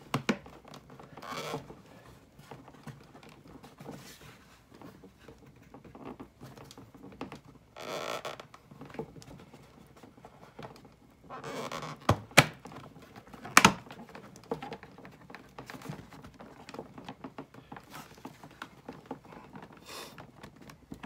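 Plastic fog light bezel being worked loose from a 2018 Subaru WRX's front bumper by hand: scattered knocks and clicks with short bouts of plastic scraping, and a few sharp snaps about twelve to fourteen seconds in.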